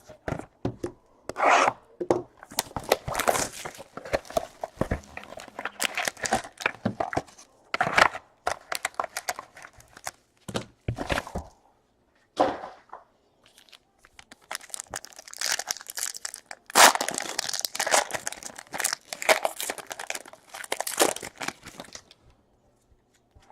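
Trading card packaging being torn open and crinkled by hand, a run of irregular rips and rustles that pauses about twelve seconds in and dies away near the end.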